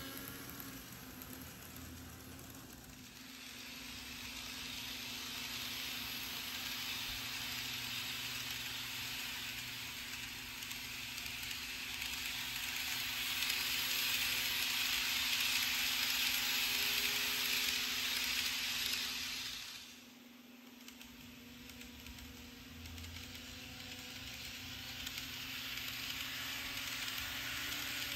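N gauge model trains running on the layout track, their wheels rattling and hissing along the rails, over a steady low hum. The sound swells to its loudest as a train passes close a little past the middle, drops away sharply about two-thirds through, then builds again as another train approaches.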